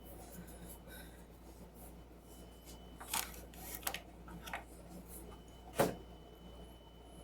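A few short knocks and clicks from things being handled in a kitchen, the loudest about six seconds in, over the faint steady hum of a microwave oven running.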